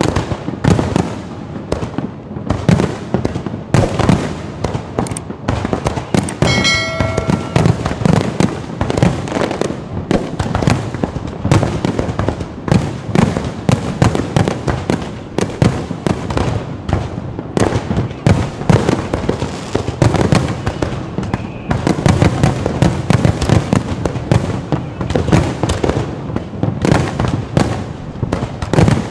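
Fireworks going off in a dense, continuous run of bangs and crackles, with a brief ringing tone about seven seconds in.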